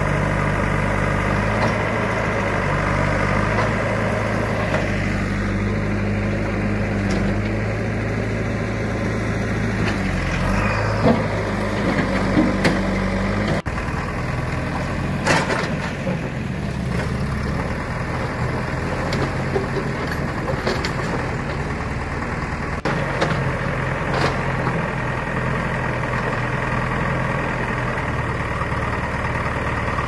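Diesel engine of a backhoe loader running steadily, with a few short knocks and clatters from the demolition work.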